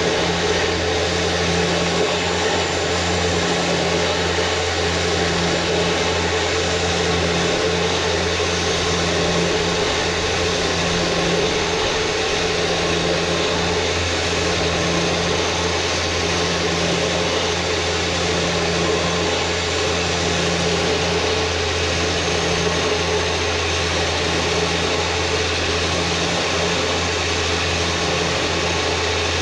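Electric winch on a Jeep Wrangler running steadily, spooling synthetic rope onto its drum: a constant low mechanical drone with no breaks.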